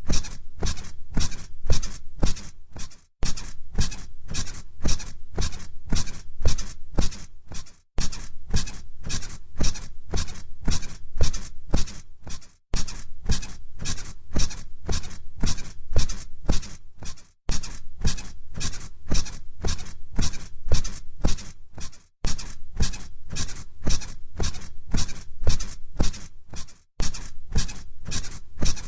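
Bed springs squeaking rhythmically under bouncing, about three creaks a second, over a steady low hum. The loop breaks off briefly about every five seconds and restarts.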